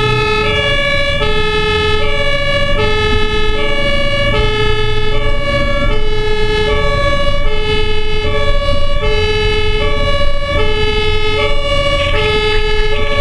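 Ambulance two-tone siren (German Martinshorn) alternating steadily between a low and a high note, each held a little under a second, heard from inside the cab over engine and road rumble on an emergency run.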